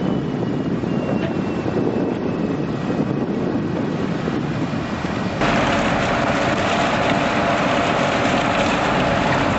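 Steady engine rumble with wind noise on the microphone. About five seconds in it cuts abruptly to a louder, hissier rush of noise.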